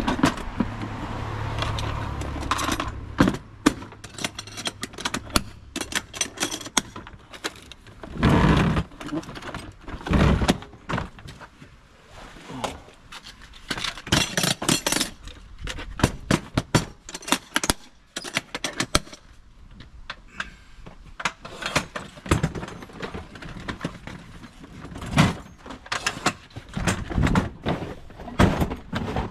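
Hand tools and metal parts being handled and shifted about in a van's racking: irregular clatters, knocks and rattles, with a few louder bangs.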